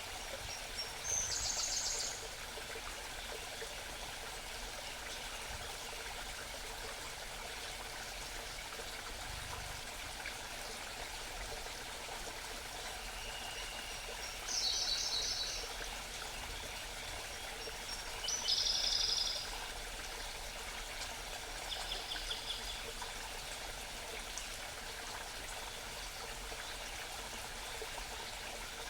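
Mountain brook babbling steadily, with a small songbird singing four short, high, rapid trilled phrases over it.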